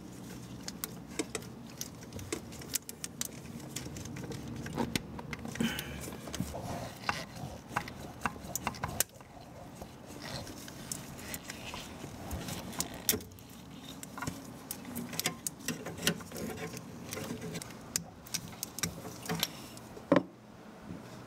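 Irregular small plastic clicks and rattles of an oxygen sensor's wiring connector being pried open with a small flat-bladed screwdriver and handled, with one sharper click near the end.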